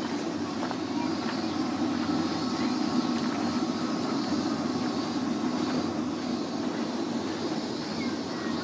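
Steady low background din, an even rumbling noise with no single event standing out.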